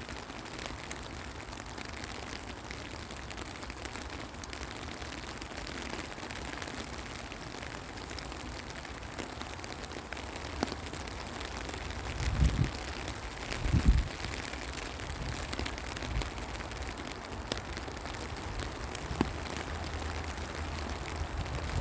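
Steady rain falling, with fine drop ticks throughout. Two short low thuds come about halfway through.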